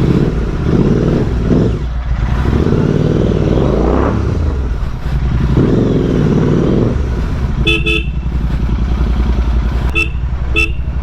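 Royal Enfield Continental GT 650's 648 cc parallel-twin engine through a Red Rooster Performance aftermarket exhaust, riding off with the revs rising and falling, with a clear rise about four seconds in. A vehicle horn beeps twice in quick succession about eight seconds in, then twice more near the end.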